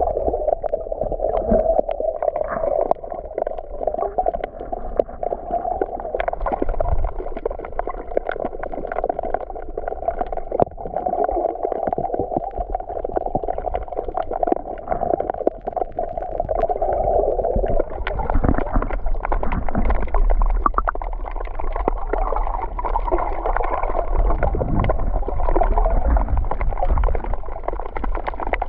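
Sea water gurgling and sloshing, heard muffled, with a low rumble underneath and scattered small clicks.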